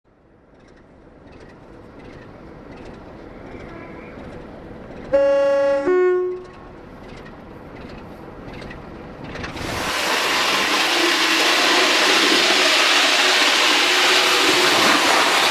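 A train approaching with a swelling rumble, then a loud two-note horn blast about five seconds in, the second note higher and shorter. From about halfway, a loud steady rush as the train passes at speed.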